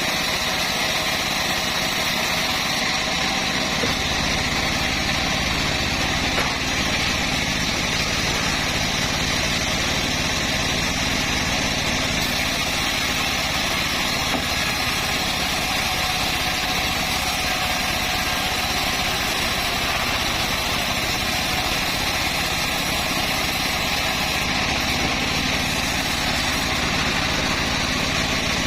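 Homemade bandsaw mill running steadily, a continuous engine-driven drone with a high hiss over it.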